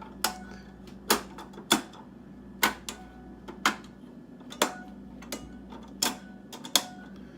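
Plastic-and-metal drive trays and latches of a six-bay 2.5-inch SATA hot-swap enclosure being handled, giving about ten sharp, irregular clicks and taps, some with a brief metallic ring.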